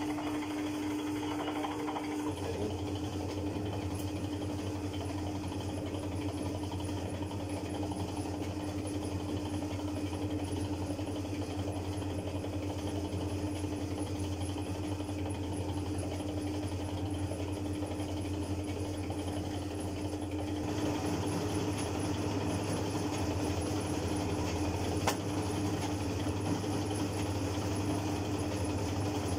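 Motorized dough-sheeting roller machine running steadily as a sheet of noodle dough passes through its rollers, a constant machine hum. A little after two seconds in the low hum gets stronger, and about two-thirds of the way through the sound grows brighter and slightly louder.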